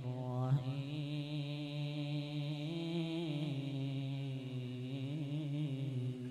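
A young man's solo Quran recitation (tilawah) sung into a microphone. There is a quick rising flourish just after the start, then long drawn-out notes held low and steady with slight wavering turns.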